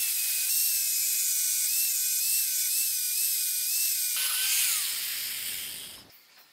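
Angle grinder with an abrasive disc grinding a steel planer blade: a steady high whine over a grinding hiss, the pitch dipping slightly each time the disc bites. About four seconds in the pitch falls away as the grinder winds down, dying out about six seconds in.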